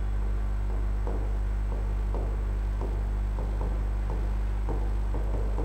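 Steady low electrical hum, with short strokes of writing on the board coming several a second as words are written out.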